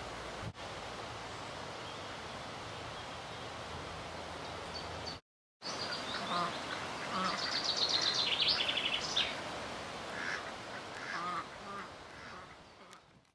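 Ducks quacking, with small birds singing in quick high runs, over a steady outdoor hiss. The sound drops out for a moment a little over five seconds in, then fades away toward the end.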